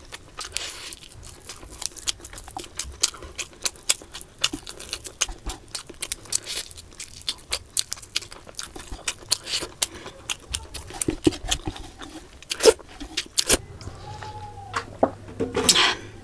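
Close-miked eating sounds: wet chewing, lip smacks and finger-licking while eating fried fish by hand, with many short irregular clicks and a few louder smacks.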